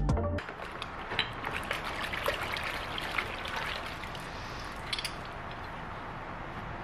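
Water sloshing and trickling as gloved hands scrub and rinse small metal foot-peg mounts in a bucket, with light clicks of the metal parts, easing off near the end.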